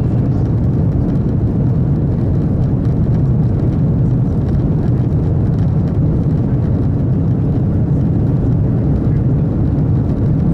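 Cabin noise inside a JR L0 series maglev train running magnetically levitated at 500 km/h through a tunnel: a loud, steady low rumble that holds even throughout.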